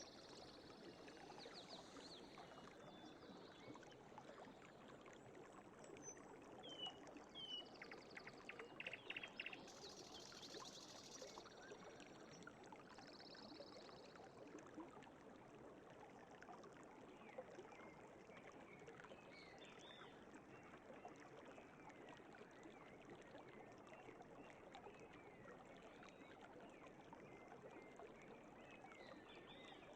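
A forest stream babbling faintly and steadily, with birds chirping briefly now and then.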